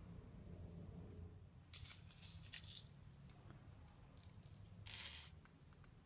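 Small candy sprinkles and sugar crystals rattling as they are spooned and handled: a longer rattle about two seconds in and a shorter, louder one about five seconds in.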